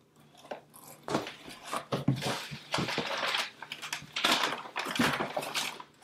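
Paper and plastic packaging rustling, with light knocks of boxed parts being handled, as a cardboard shipping box of computer parts is rummaged through. The rustles come in irregular bursts from about a second in.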